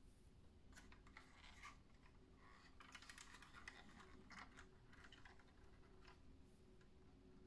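Near silence with faint handling noise from a BBurago 1:18 diecast Range Rover Sport model being turned in the hands: light clicks and scratches of fingers on the model, in a few short clusters.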